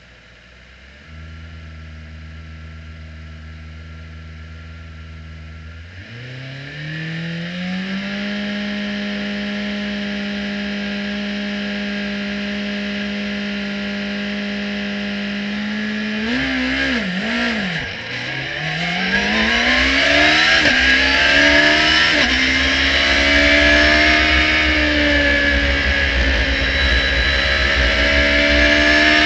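Radical SR3-RSX race car's engine heard from the cockpit. It runs at a low steady idle, then is raised to higher revs and held there with the car stationary. About halfway through it pulls away from a standstill, revving up through a series of upshifts as a rising rush of wind and spray noise builds on the wet track.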